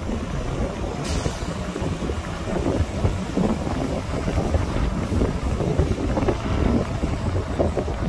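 Heavy earthmoving machinery rumbling steadily, with wind buffeting the microphone.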